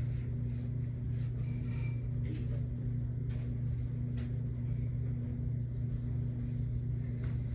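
A steady low hum with a few faint, scattered taps.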